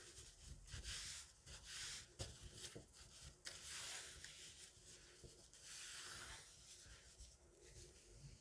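Quiet, close-up rubbing and swishing of hands handling objects on a surface, in strokes of about half a second to a second, with a couple of sharp light taps.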